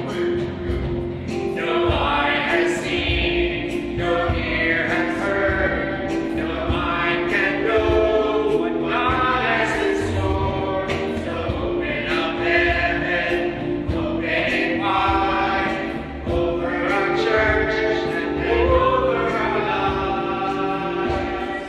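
Small church worship team singing a worship song together, with instrumental accompaniment: a steady held note under the voices and a low beat.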